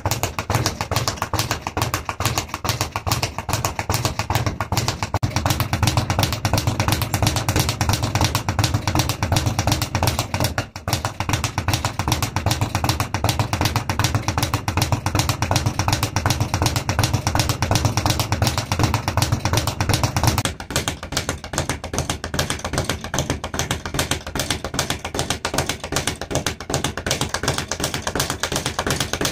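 Speed bag being punched in a fast, continuous rhythm with weighted gloves, the bag rattling against the rebound platform in a rapid stream of taps. About two-thirds of the way through, the deeper part of the sound drops away and the rattling goes on a little thinner.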